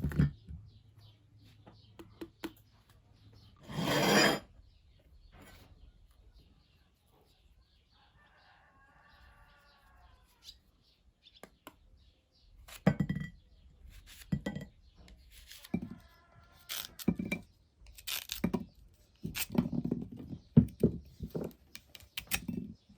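Scattered knocks, clinks and thuds of hard objects being handled and set down, coming thicker and louder in the second half, with a short noisy rush about four seconds in.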